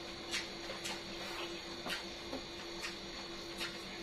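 Close mouth sounds of chewing a mouthful of chicken feet and rice: scattered soft smacks and clicks, roughly one a second, over a steady low hum.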